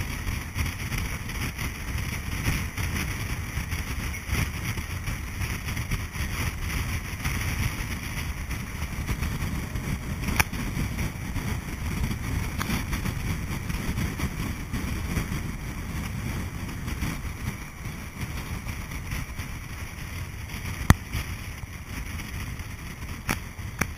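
MyCiTi bus driving along a city road: a steady rumble of engine and tyre noise. Two brief sharp clicks or knocks cut through it, one about ten seconds in and one a few seconds before the end.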